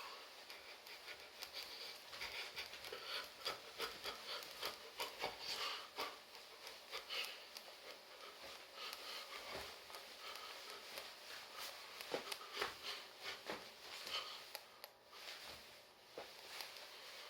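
Irregular light taps and rustles of a person moving about while dancing: footfalls and clothing brushing, with no music.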